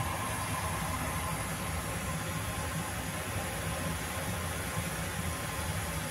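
Steady low hum with an even hiss over it: continuous kitchen background noise, without any distinct events.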